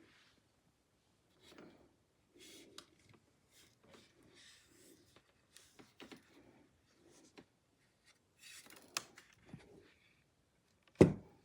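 Faint scattered rustling and handling noises, with small scrapes and clicks, then one loud thump near the end.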